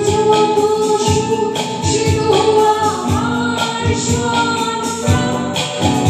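Live band music: a woman singing long held notes over keyboard, electric and bass guitar, with tabla beating a steady rhythm.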